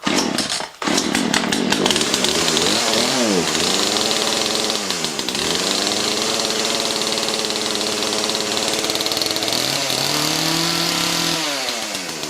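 Poulan Wild Thing 40cc two-stroke chainsaw cold-started on choke. It bursts into life at once, stumbles for a moment, and catches about a second in. It then runs with its engine speed rising and falling several times, revs up again near the end and drops back to a lower idle.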